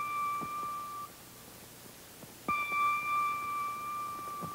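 A high musical note with a sharp start, held steady for about two seconds and then stopping, sounding twice: one ends about a second in and the same note starts again about two and a half seconds in. Faint taps sound in between.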